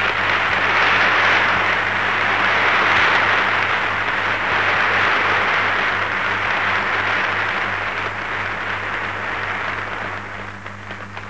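Audience applauding: dense, even clapping that starts suddenly and slowly dies away over the last few seconds, with a steady low hum from the old recording underneath.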